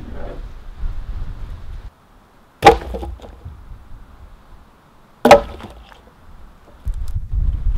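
Two pieces of dry firewood tossed one at a time onto a woodpile on the ground. Each lands with a sharp wooden clunk and a short clatter, about two and a half seconds apart.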